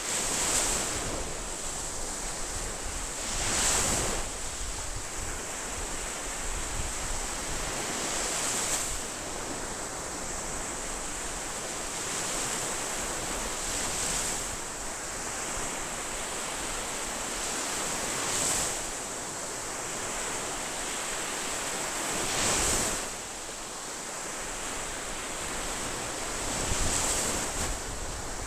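Ocean waves breaking on a shore, each surge swelling and falling back about every four to five seconds over a steady wash of surf.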